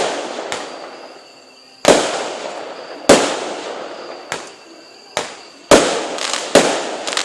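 Aerial fireworks bursting: a string of sharp bangs, some louder than others, about one to two seconds apart, each followed by a long echo that dies away.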